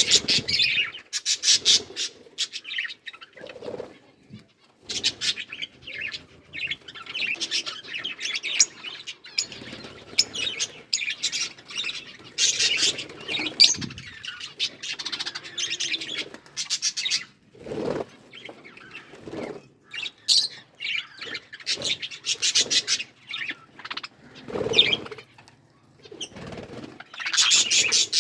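Budgerigars chattering and chirping continuously in quick, irregular runs of high chirps, with occasional wing flutters.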